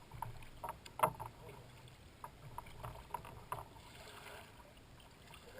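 Kayak paddling: irregular splashes and drips as the paddle blades dip into and leave the water, with a sharper splash about a second in and a longer swish around four seconds in.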